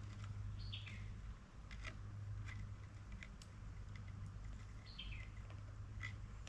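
A bird calling twice, a few seconds apart, each call a short falling chirp, over faint scattered clicks and a low steady rumble.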